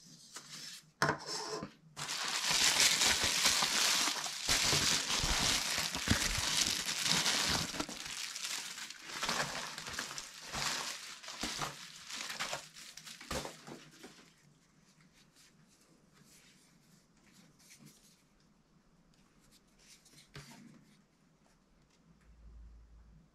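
Plastic bubble wrap crinkling and rustling as hands unwrap a camera lens. It opens with a couple of handling knocks, and the crinkling runs dense and loud before dying away a little past halfway to faint handling noises.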